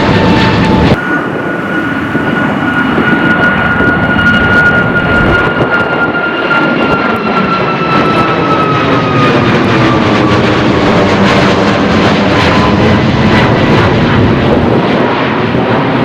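Jet airliner taking off at full take-off thrust: a loud engine roar with a high whine that slowly drops in pitch as the aircraft passes. An abrupt switch to this take-off comes about a second in, from the tail of another jet's take-off.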